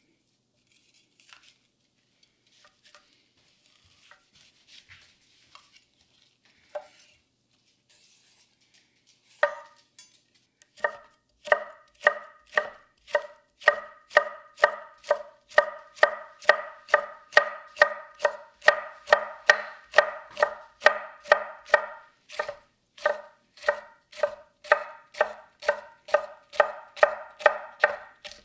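A 250 mm gyuto cutting a red bell pepper on a wooden cutting board: faint, scattered cuts at first, then, about a third of the way in, a steady rhythm of about two knocks a second as the blade slices the pepper into thin strips and meets the board.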